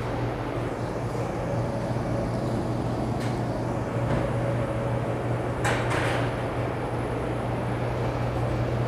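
Steady low machine hum, with a light knock about three seconds in and a brief clatter near six seconds.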